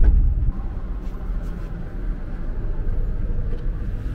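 Passenger train's low, steady rumble heard inside the carriage. It is louder for the first half second, then drops to a quieter even level.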